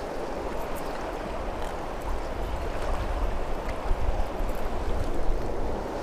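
River running fast at high flow, a steady rushing of water, with a low rumble swelling for a couple of seconds past the middle.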